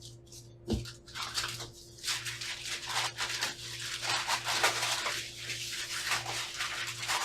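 A shipping package being torn open and handled: a knock about a second in, then continuous crinkling, rustling and tearing of packaging material. A faint steady hum sits underneath.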